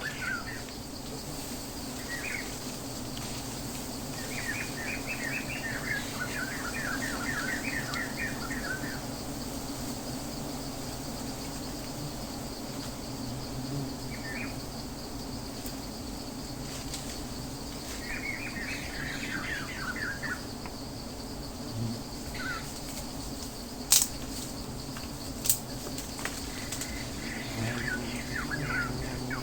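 Small birds chirping in quick trilling runs of a few seconds at a time, three times, over a steady low hum. Two sharp clicks come near the end.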